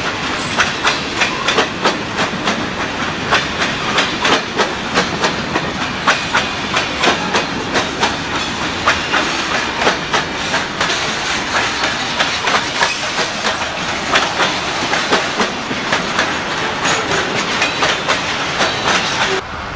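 Freight train of covered hoppers and tank cars rolling past close by: steel wheels clicking over the rail joints in a steady rhythm, a few clicks a second, over continuous rolling hiss. The sound cuts off suddenly near the end.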